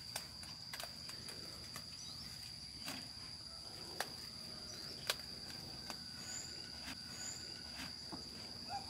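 A steady, high-pitched insect drone, with scattered sharp snaps and rustles as leafy vegetables are picked by hand. Two short, faint chirps come in the second half.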